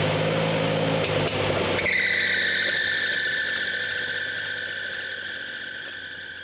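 MGC's 2.9-litre straight-six engine, on triple Weber carburettors, running on its first start after a rebuild. About two seconds in, its low note drops away and a high whine that slowly falls in pitch takes over, fading out.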